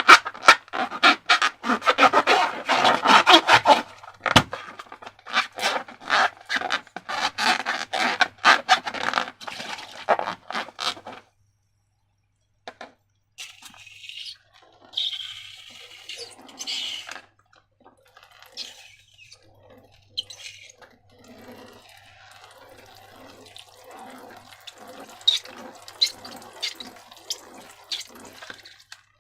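Wet slime squelching and crackling as it is squeezed and worked, with many quick sticky pops. The sound is dense and loud for about the first eleven seconds, stops briefly, then returns as softer, scattered squishes.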